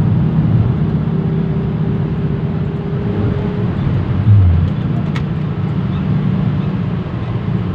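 Steady engine and road rumble heard from inside the cabin of a moving road vehicle, with one low thump a little past halfway.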